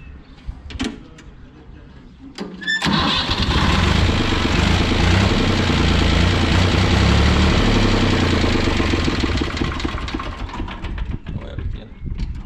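Fiat 480 tractor's three-cylinder diesel engine being started on the key about three seconds in. It turns over loudly for several seconds and then dies away, struggling with air in the fuel system after a diesel filter change.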